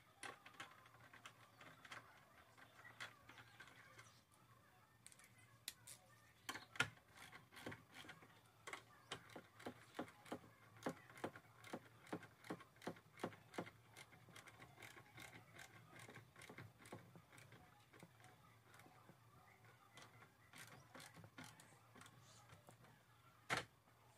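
A wrench tightening the nuts of a car battery's hold-down clamp: a run of sharp metallic clicks, about two a second, through the middle, with a few scattered clicks and knocks either side.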